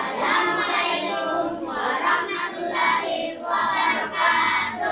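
A group of children singing a shalawat, a devotional song in praise of the Prophet Muhammad, together in sung phrases into a microphone.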